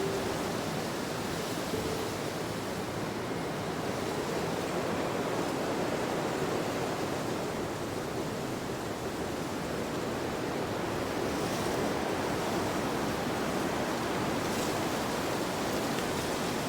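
Steady rushing nature ambience, an even whoosh that swells and eases gently, with no music.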